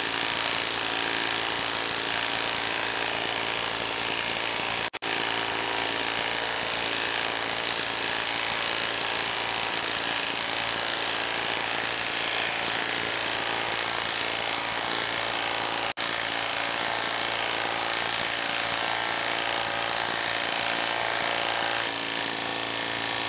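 Milwaukee M18 FUEL half-inch Stubby impact wrench hammering without pause as it drives a 10-inch lag bolt into dense log end grain under heavy load. It breaks off for an instant twice.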